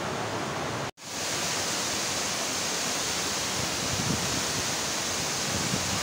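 Waterfall pouring into its plunge pool: a steady, even rush of falling water. It cuts out for an instant about a second in, then comes straight back.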